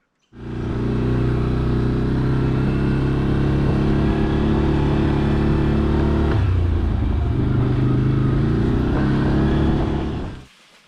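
Motor vehicle engine running loudly and steadily. About six seconds in its pitch drops sharply, then climbs back up, as in a gear change.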